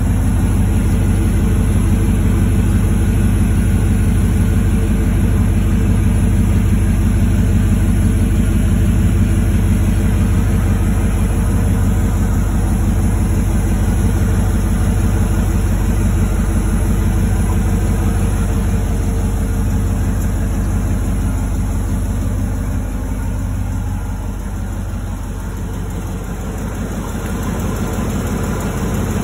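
1998 Chevrolet Silverado pickup's engine idling steadily, heard from beneath the truck. It dips a little in loudness for a few seconds near the end.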